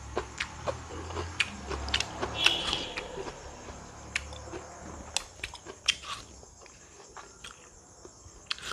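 Crisp, juicy crunching and chewing of raw fruit bitten close to the microphone: irregular sharp crunches, busiest in the first few seconds, with the loudest bite about two and a half seconds in.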